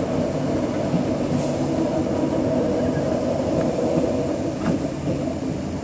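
Queensland Rail SMU-class electric suburban train, two units coupled, running past: a steady rumble of steel wheels on rail with a few brief clicks.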